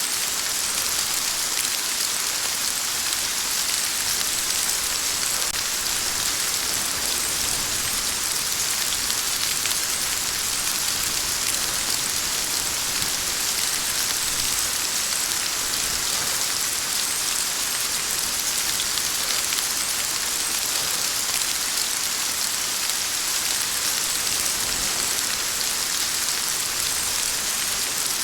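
Steady rain falling, an even hiss with a fine patter of drops that holds level throughout.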